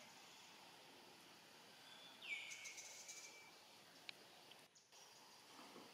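A single high-pitched animal call about two seconds in, sliding down quickly and then held level for about a second, over faint outdoor background hiss.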